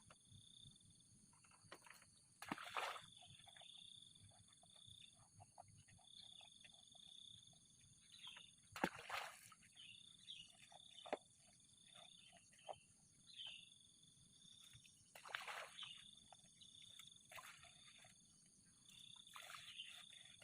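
Insects chirring in high stretches that come and go, with a steady higher buzz under them. Now and then there are handling rustles and knocks, the loudest three about 2.5, 9 and 15.5 seconds in.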